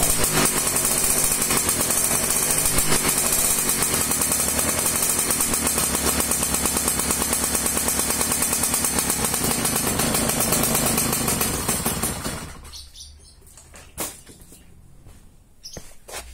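Romet Komar 232 moped's small two-stroke engine running steadily, then dying away about twelve seconds in, followed by a few knocks. It is plausibly being run for the first time in years.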